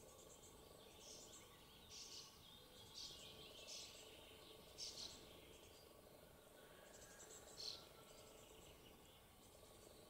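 Quiet natural ambience: faint, short, high-pitched chirps at irregular intervals, over a faint steady hum.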